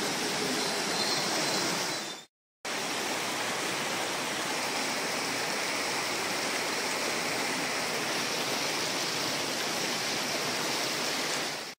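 Floodwater rushing and churning through an overflowing open storm drain, a steady rush of water. It drops out for a moment about two seconds in, then resumes.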